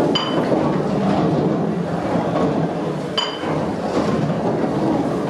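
Historic steam mill engine running, its large flywheel and gearing making a steady clatter and rumble. A short ringing metallic clink comes twice, once near the start and again about three seconds later, repeating at the engine's slow rhythm.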